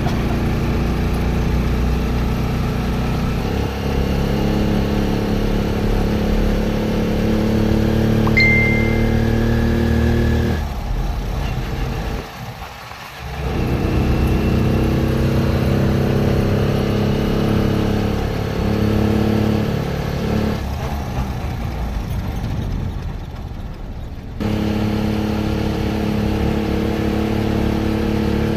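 A small vehicle's engine heard from inside its cab while driving, pulling up in pitch as it accelerates and dropping away twice as it eases off, about eleven and twenty-one seconds in. A short high beep sounds about eight seconds in.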